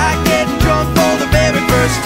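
Upbeat country music with a steady drum beat and a gliding melody line.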